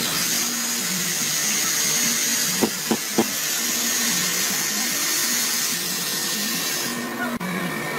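Bosch cordless SDS-max rotary hammer drilling into concrete through a vacuum dust-extraction shroud: a steady whirring hiss, with three short knocks about three seconds in. The high part of the hiss drops away near the end.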